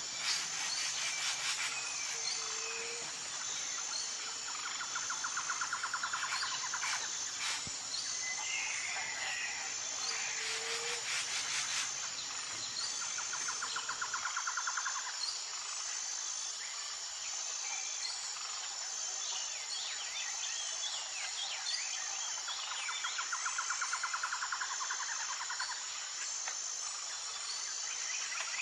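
Outdoor nature ambience: a steady high-pitched insect chorus with an even pulsing beat, a buzzing trill that comes back every several seconds, and scattered short bird chirps.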